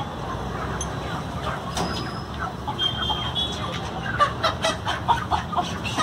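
Fowl clucking in short, rapid calls from about halfway in, over a steady low background hum.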